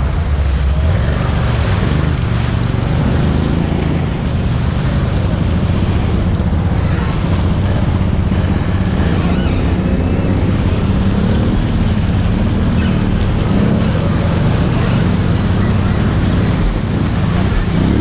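Quad bike engine running at low, wavering revs while wading through a shallow river, with water rushing and splashing around the wheels.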